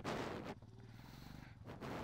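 Motorcycle engine running low and steady, with two short, louder rushes of noise, one at the start and one near the end.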